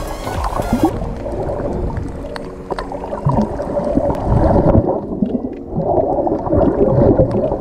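Muffled rushing and gurgling water picked up by a camera just below the surface among swimming snorkelers, surging unevenly. Being underwater dulls the sound.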